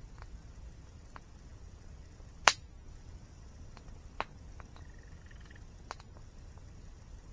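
Wood campfire crackling: scattered sharp pops over a faint steady background, the loudest pop about two and a half seconds in, with smaller ones near four and six seconds.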